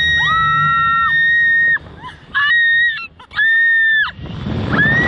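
A young woman screaming on a slingshot ride, in long, high, steady-pitched screams: one long scream, then two short ones, then another long scream beginning near the end. Wind rush on the microphone comes up in the last second as the capsule swings.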